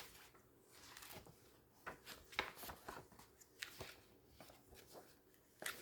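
Faint rustling and crinkling of glossy magazine pages being turned quickly, with small irregular paper clicks.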